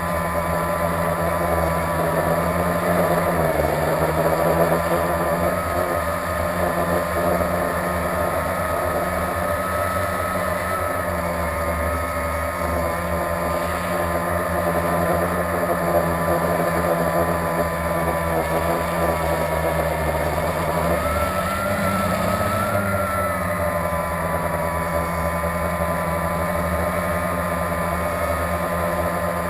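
Blade 350QX quadcopter's four electric motors and propellers buzzing steadily, heard up close from the onboard camera. The pitch wavers with throttle changes and rises briefly about 21 seconds in.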